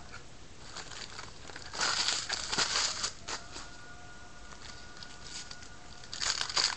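Trading card pack wrappers and cards being handled, crinkling and rustling in bursts about two seconds in and again near the end.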